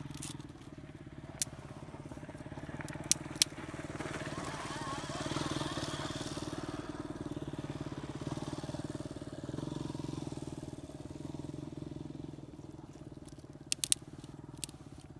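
Motorcycle engine running steadily, swelling louder about five seconds in. A few sharp snaps from the kindling fire stand out, a pair near the end.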